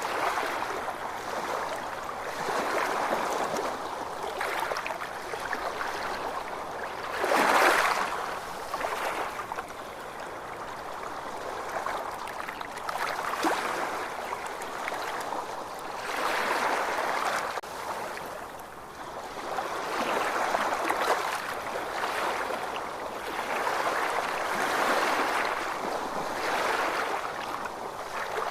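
Ocean waves washing in, swelling and fading every few seconds, with one louder surge about a quarter of the way in.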